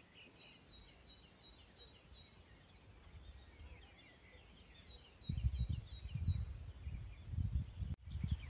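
Wild birds singing: a thin high note repeated about three times a second among scattered twittering chirps. From about five seconds in, low irregular rumbles of wind buffet the microphone.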